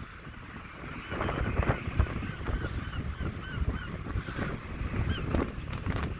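Birds giving a rapid series of short, repeated honking calls, with wind buffeting the microphone underneath.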